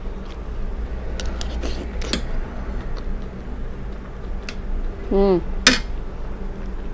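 Metal spoon clinking against a ceramic plate: a few sharp taps in the first two seconds and another near the end.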